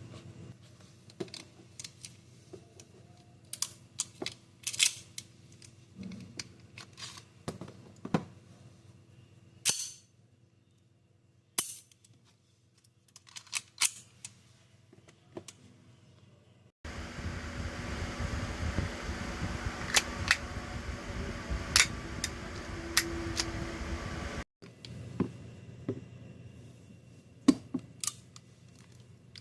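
CO2-powered airsoft BB gun firing: sharp shots and clicks at irregular intervals. About halfway through, a few shots come over a steady hiss of background noise.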